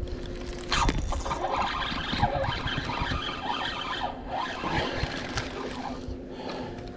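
A hooked bass being reeled in beside the boat. After a sharp sound about a second in, the fishing reel winds with a warbling whir while the fish splashes at the surface. A faint, steady electric trolling-motor hum runs underneath.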